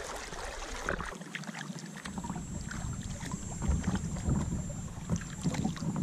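Rushing river water at the start, then kayak paddle strokes: the blades dip and splash, with drips and wind rumble on the microphone.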